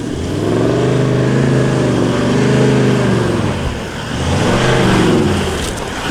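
Off-road 4WD's engine under way, its revs climbing and then easing back twice, with a brief dip about four seconds in.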